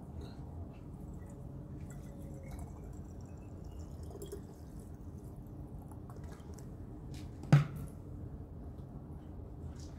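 Water poured from a glass bottle into a brown glass bottle, trickling and dripping, with a faint rising pitch as the bottle fills. One sharp, loud thump about seven and a half seconds in.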